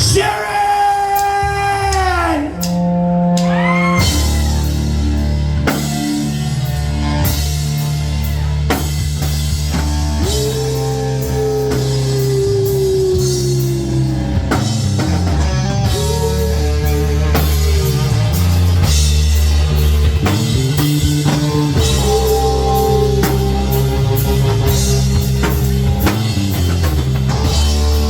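Live rock band playing, with drum kit and bass under a lead guitar that bends its notes.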